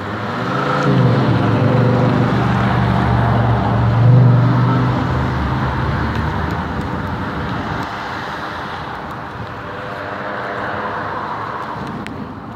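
Traffic: a car engine accelerating close by, rising in pitch over the first second, then holding a low hum that is loudest about four seconds in before fading. Steady road noise continues underneath.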